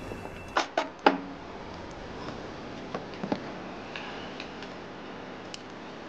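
Three sharp knocks in quick succession about half a second in, followed by a few fainter clicks and taps around three seconds in, over quiet room tone.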